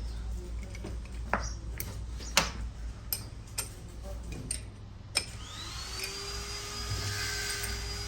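Workshop sounds of a transmission repair: scattered metal clicks and knocks as parts are handled over a steady low hum. Then, about five seconds in, a small electric motor spins up with a rising whine and runs on at a steady pitch.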